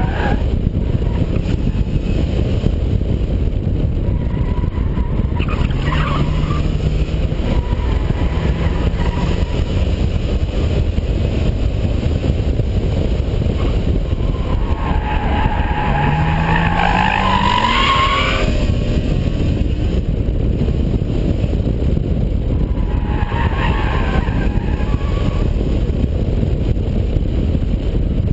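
Car driven hard on a track, heard from inside the cabin: a steady drone of engine and wind, with the tyres squealing through corners. The longest and loudest squeal comes about halfway through and lasts some four seconds, with shorter ones about a fifth of the way in and near the end.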